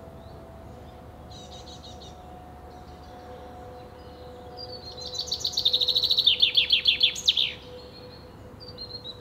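Male common chaffinch singing: a few short chirps about a second and a half in, then one loud song phrase of about three seconds, a fast run of notes falling in pitch that ends in a quick flourish.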